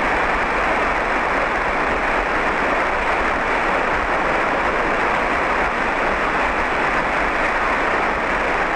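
Cessna 172 cabin noise on approach: the steady, loud drone of the engine and propeller mixed with airflow, with the power on.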